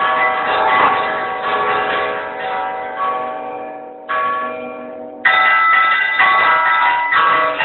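Several church bells in the belfry are rung close up in a festive peal, struck in quick succession by their clappers, which are pulled on ropes. The ringing fades a little over three seconds in, picks up with a fresh strike near four seconds, and then rings out fully again from about five seconds on.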